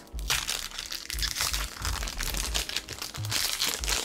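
Foil Pokémon booster pack crinkling and being torn open by hand.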